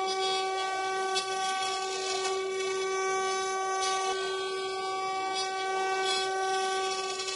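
Twin 800 W spindles of a mini CNC router running with a steady high-pitched whine while a small end mill carves a 3D pattern into wood, with a hiss of cutting that swells now and then.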